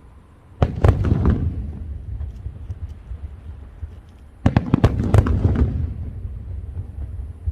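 Fireworks going off in two volleys about four seconds apart. Each volley is a quick cluster of sharp bangs trailing off into a low rumbling echo.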